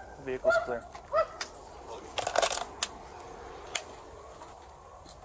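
Police dog barking twice in the first second or so, followed by a brief rattling clatter and a few sharp clicks.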